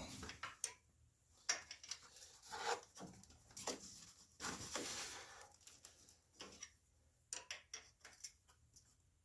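Hand tools being handled and fitted to the oil drain plug of a riding mower engine: scattered metal clicks, knocks and short scrapes, with a run of quick clicks near the end.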